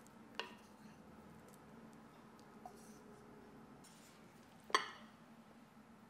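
Two sharp clinks of a kitchen utensil against dishware, one about half a second in and a louder one near the end, with a faint tap in between.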